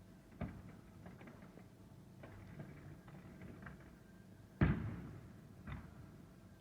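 Fireworks bursting: a bang about half a second in, a few smaller pops and crackles, then the loudest bang about four and a half seconds in with a long echoing tail, followed by another smaller bang.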